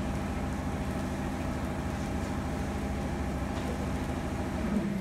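Stopped electric train's onboard equipment humming steadily, with a low rumble and a few steady tones.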